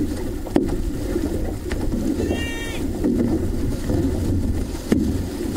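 Outrigger canoe (OC-6) under paddle: steady rumble of water and wind on the hull-mounted microphone, with a few sharp knocks. A short high-pitched call sounds once about two seconds in.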